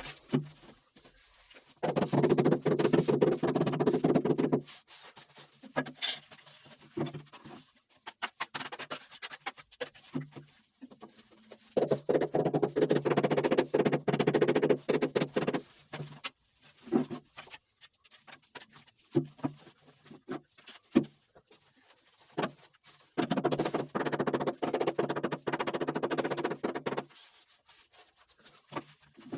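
A motor-driven tool with a steady pitch runs in three bursts of a few seconds each, with scattered knocks and scrapes between the bursts.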